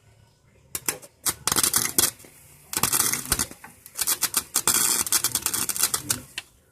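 Welding arc crackling in a series of short bursts as a sheet-metal floorboard patch is tacked and stitch-welded, with brief pauses between the welds.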